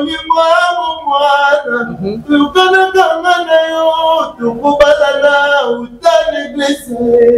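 A man singing a slow song in Lingala, holding long notes that step and slide between pitches, with short breaths between phrases.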